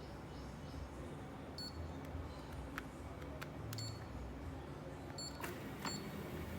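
Four short, high electronic beeps, spread through the clip, mixed with a few sharp clicks, over a steady low hum. These are typical of buttons being pressed on the control unit of an OSIM 777 massage machine under repair.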